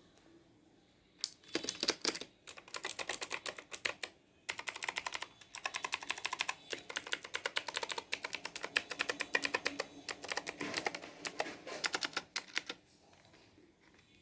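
Fast typing on a mechanical keyboard with clicky blue switches, each keystroke a sharp click, in quick runs with short breaks about two and four seconds in, stopping about a second before the end.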